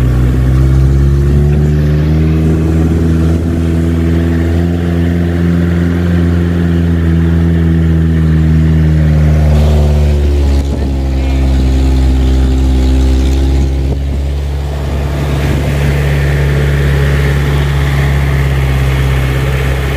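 Car engine running as it drives up a narrow hill road. Its note rises a little over the first few seconds and holds steady, dips about ten seconds in, then runs on steady.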